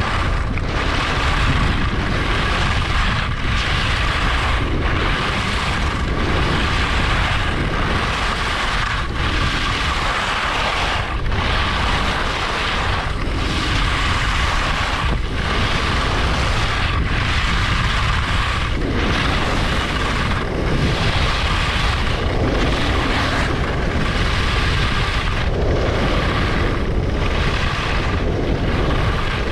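Skis scraping and carving over groomed snow at speed, with wind rushing loudly on the microphone. The scraping eases off briefly every second or two, at each turn.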